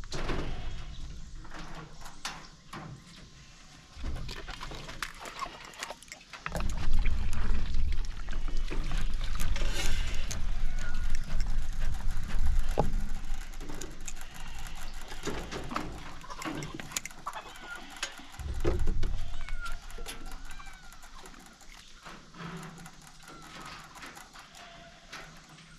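A cat meowing now and then, amid rustling, knocks and stretches of low rumble.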